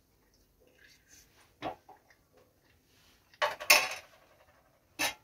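A few knocks and a short clatter of a hard bel (wood apple) and its shell pieces being handled on a steel plate, the loudest clatter a little past the middle.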